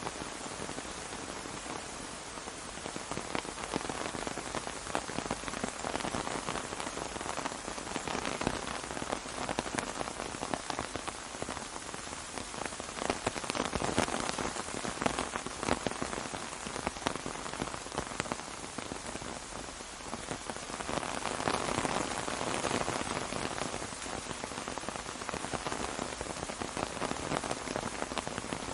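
Steady rain pattering on an umbrella, a dense hiss of drops with many small individual hits, swelling slightly twice.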